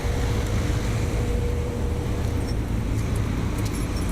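Rooftop air-conditioning unit running: a steady low rumble and rush of air with a faint steady hum, and a few light ticks near the end.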